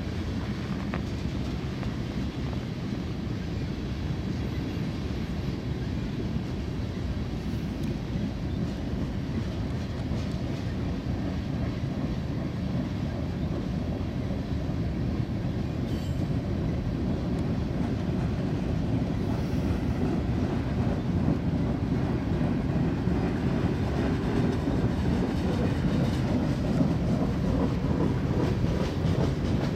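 A BNSF mixed freight train's cars rolling past on the rails, a steady low sound that grows gradually louder.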